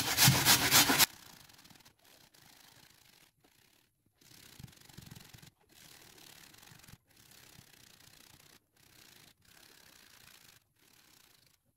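Raw potato rubbed against a stainless-steel box grater, rapid rasping strokes about six a second. Loud for about the first second, then suddenly much fainter for the rest.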